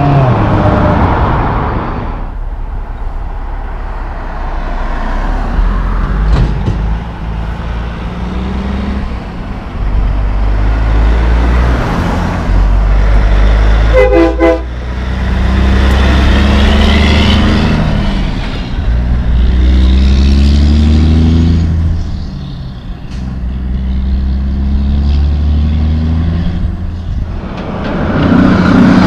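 Heavy diesel trucks passing one after another, engines running low and tyres humming, with the engine pitch climbing in steps as a truck pulls away through its gears. A short, pulsing horn toot sounds about halfway through.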